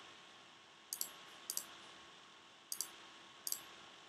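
Computer mouse buttons clicking four times in two quick pairs, each click a sharp double tick of press and release, as folders are opened. A faint steady hum runs underneath.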